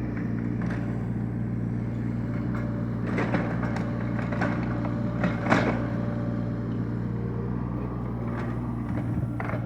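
Kubota mini excavator's diesel engine running steadily, with a few sharp clanks, the loudest about five and a half seconds in. The low engine note changes near the end.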